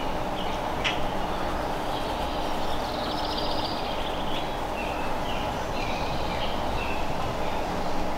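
Steady low outdoor rumble with birds chirping faintly over it through the middle.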